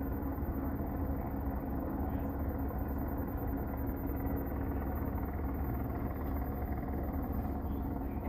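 A vehicle engine idling: a steady low rumble with a constant hum, unchanging throughout.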